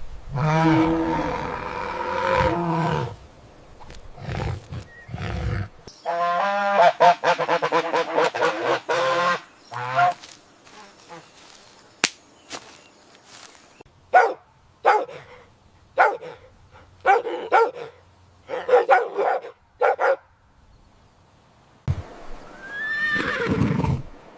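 A sequence of animal calls: a long call at the start, a run of rapid pulsed calls, then a series of short separate calls about one a second.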